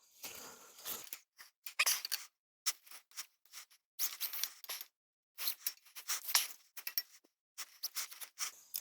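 Short, irregular clinks, scrapes and rustles of deer-stand hardware and straps being handled, several a second with brief pauses between.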